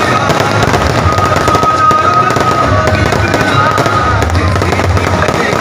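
Fireworks going off in quick succession: dense, continuous crackling and popping from aerial bursts and sparking shells.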